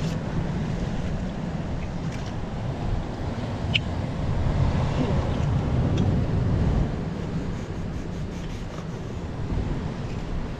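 Wind buffeting the microphone, with surf washing on the shore behind it and a few faint ticks.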